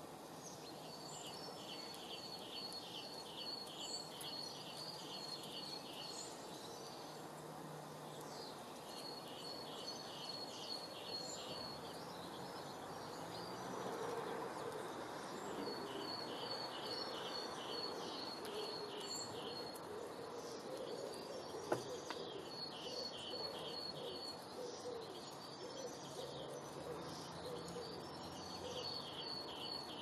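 Songbird singing a phrase of evenly spaced, high, repeated notes, about three a second, in five bouts separated by pauses, over steady outdoor background noise. A single sharp click comes about three-quarters of the way through.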